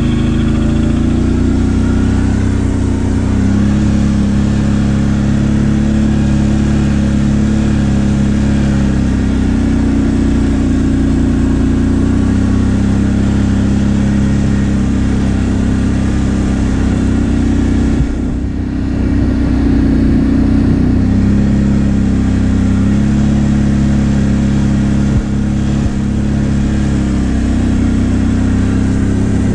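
ATV engine running at high revs under steady throttle, its pitch stepping up and down a few times and easing off briefly about two-thirds of the way through.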